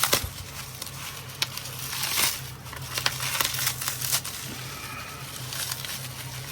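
Packaging crinkling and rustling as a parcel is unwrapped by hand, with a few sharp clicks, over a low steady hum.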